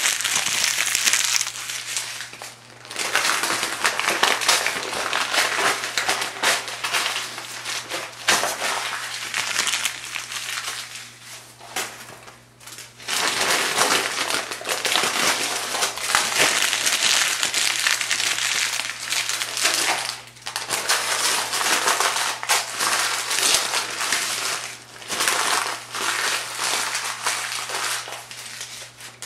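Thin phone book pages being crumpled and crushed by hand: dense, crackly paper crinkling in long stretches, broken by short pauses.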